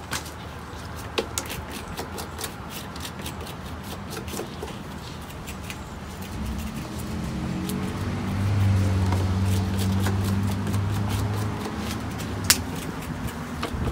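Knives clicking and scraping as spines are trimmed off nopal cactus pads on cutting boards. From about halfway a low steady hum swells up, holds for several seconds, then fades.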